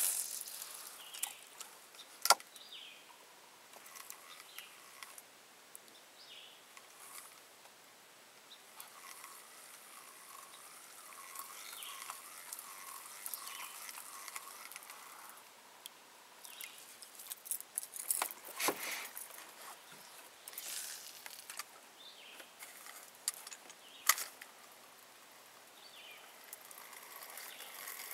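Fishing gear handled in a small boat: a few sharp clicks and knocks, with a cluster of them partway through, and faint water and outdoor sounds between.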